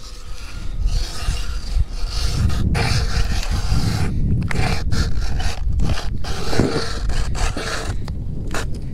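Hand-cranked ice auger cutting through lake ice: a continuous grinding scrape as the blades shave the ice, broken by several brief pauses.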